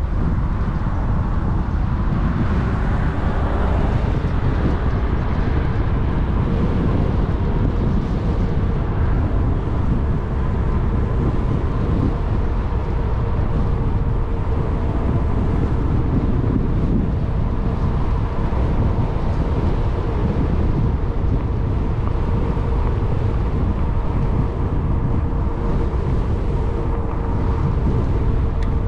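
Wind buffeting the microphone of a moving e-bike, with a steady whine from its electric motor that dips slightly near the end.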